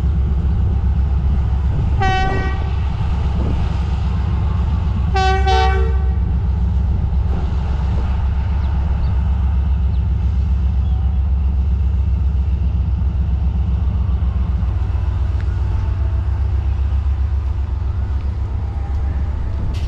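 Diesel locomotive horn giving two blasts, a short one about two seconds in and a longer two-tone one a few seconds later, over the steady low rumble of the locomotive's diesel engine, which eases off a little in the second half as the locomotive draws away.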